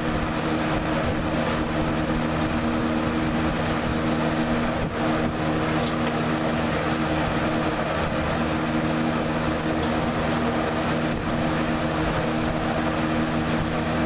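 Westinghouse AW12-1 vintage box fan with a Marco motor running on high speed: a steady rush of air from the wide plastic blade over a steady low motor hum.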